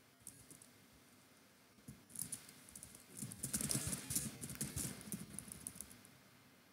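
Typing on a computer keyboard: a few lone key clicks, then a quick run of clattering keystrokes from about two seconds in that lasts about four seconds.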